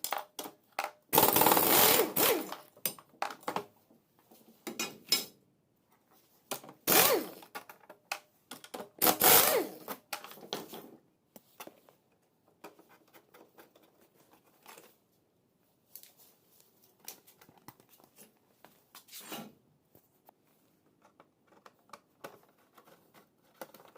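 Small electric power tool, such as a drill-driver, running in a few short whirring bursts that rise and fall in pitch while undoing the tail-panel screws, followed by quiet clicks and rattles of parts and tools being handled.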